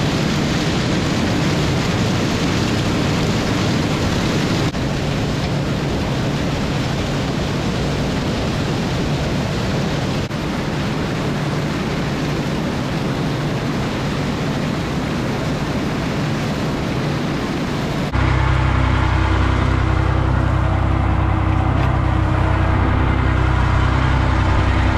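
Motor vehicle running: a steady rushing engine and road noise with a low hum. About 18 seconds in it cuts abruptly to a louder engine running steadily with a deep, even drone.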